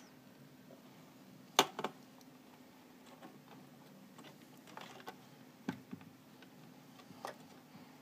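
Scattered clicks and taps of a circuit board and wires being handled inside an amplifier chassis, the sharpest about a second and a half in with two quick ones right after, then a few more later.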